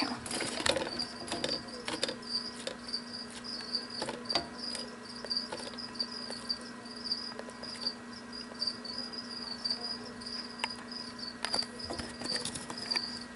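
Crickets chirping steadily in quick, even pulses, with scattered small clicks and taps from a jeweled lacerta (ocellated lizard) biting and working a piece of raw rabbit heart on a paper plate. A faint low hum runs underneath.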